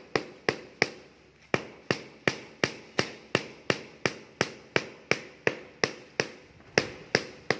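Rubber mallet tapping a large floor tile to bed it into wet mortar. Sharp, even knocks come about three a second, with one short pause about a second in.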